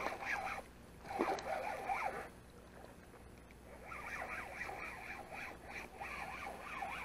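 Spinning reel being cranked with a fine, rattling whir, in three spells with short pauses, as a hooked pike is reeled in.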